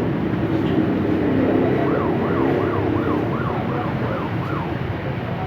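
Steady low engine rumble, with a siren yelping rapidly up and down, about two or three whoops a second, for a couple of seconds in the middle.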